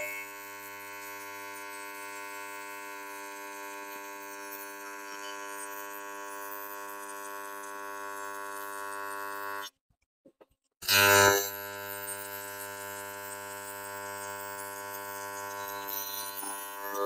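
Steady buzzing hum of an AC TIG welding arc on aluminium. It cuts off a little under ten seconds in, then strikes again about a second later with a short loud burst and buzzes on.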